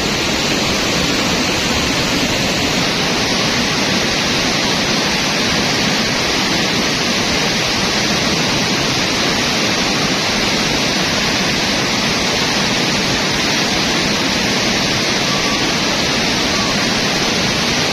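Steady rush of fast-flowing river water over rapids, an even unbroken noise.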